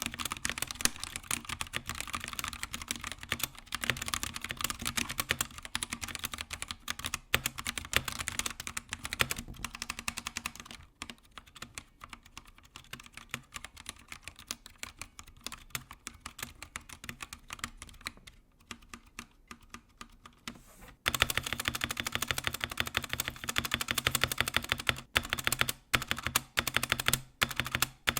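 Typing on a Drop ENTR mechanical keyboard with Halo True tactile switches, keys bottoming out. About ten seconds in it becomes much quieter typing without bottoming out. About twenty seconds in, louder strokes on the stabilized keys take over; the stabilizers are unlubricated and rattle quite a bit.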